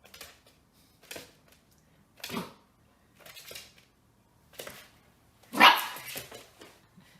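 A dog barking in separate short barks about once a second, the loudest bark near the end.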